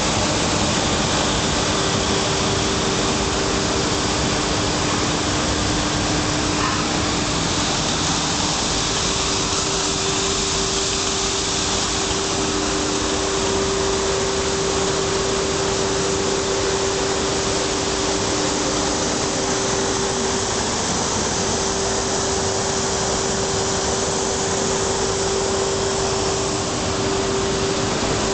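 Colines 200 bubble film extrusion line running: a loud, steady machinery noise with a constant hum, joined in the first half by a second, lower hum.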